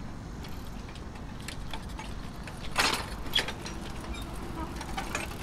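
Outdoor walking ambience: a low steady rumble with scattered light clicks and rattles from footsteps and nearby bicycles, and one louder short scuff a little past halfway.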